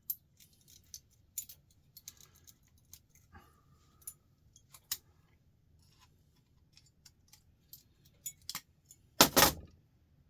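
Scattered small metallic clicks and taps of hand tools working on a switch's contact parts, with a brief ringing tone about three seconds in and one loud clatter about nine seconds in.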